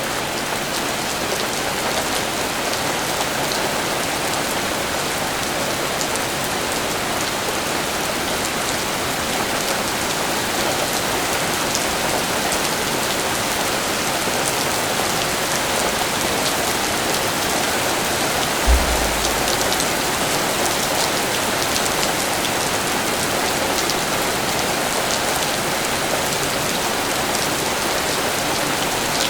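Steady rain falling on surfaces, an even hiss with scattered sharp drop ticks. A brief low thump comes about two-thirds of the way through.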